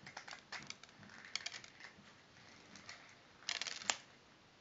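Faint gritty crunching from a dry handful squeezed in the hands, in a few short bursts with a sharper crack near the end: a home foley imitation of footsteps in snow.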